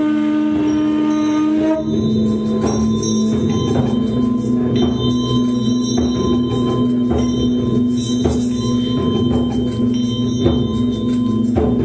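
Sound-concert music of sustained, ringing metallic tones. The held note changes to a new one about two seconds in, over a steady beat of light percussion strikes at a little more than one a second.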